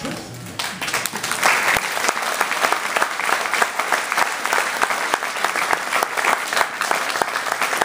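A group of people clapping their hands in applause, starting about half a second in and keeping up densely throughout.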